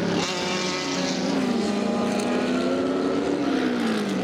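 Historic sports-prototype racing car engines running hard through a corner. The engine note wavers up and down with the throttle and falls near the end as the driver lifts off.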